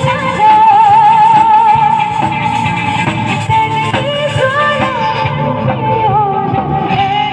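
Music: a held, wavering lead melody over a steady beat.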